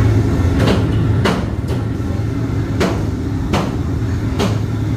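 Sharp knocks at irregular intervals, about six of them, over a steady low hum.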